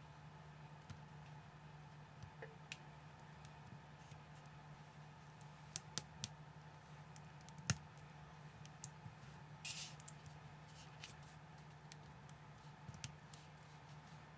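Small LEGO-compatible plastic bricks clicking as they are pressed together by hand: scattered faint sharp clicks, with a louder snap about halfway through and a brief scratchy rustle of plastic soon after. A steady low hum lies underneath.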